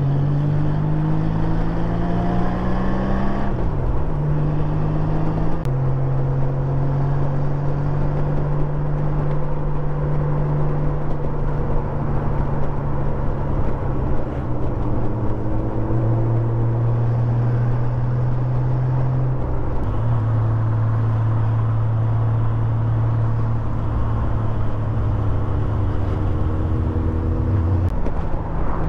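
Honda Gold Wing touring motorcycle's engine accelerating away, its note rising for the first few seconds before a gear change, then cruising at a steady note over wind and road rush, stepping in pitch a few more times.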